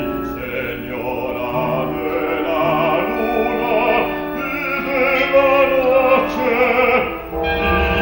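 Opera singing with a wide vibrato over held orchestral notes; the music dips briefly near the end, then a new chord begins.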